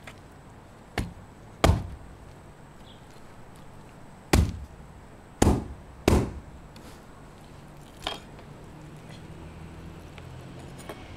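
Hatchet chopping raw mutton: six sharp chops at uneven gaps, with a pause of over two seconds after the second. Four hard chops are followed by a last, lighter one about eight seconds in.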